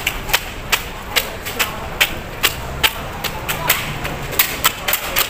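Sharp ticking clicks, about two to three a second and quickening slightly near the end, in step with walking pace, over a steady low street rumble.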